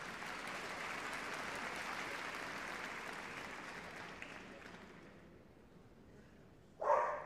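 Crowd applauding, fading away over about five seconds. Near the end a police dog starts barking loudly, the barks of a hold and bark on a decoy.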